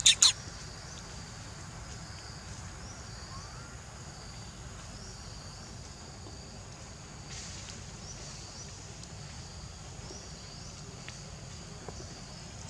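Forest ambience: faint high-pitched chirping that repeats every half second or so, over a low steady rumble. Two sharp, loud, short sounds come right at the start.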